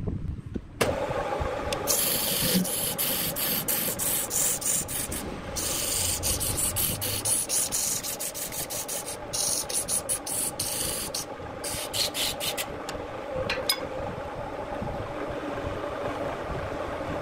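A turning tool cutting into a wooden vase blank spinning on a wood lathe, with the lathe's motor running. The rough scraping hiss of the cut starts suddenly about a second in, breaks off briefly several times as the tool lifts, and eases to a lighter, steadier scrape near the end.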